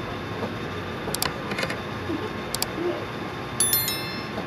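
Mouse-click sound effects from an on-screen like-and-subscribe overlay, a quick double click about a second in and another past the middle, then a short bright bell chime near the end. A steady hum runs underneath.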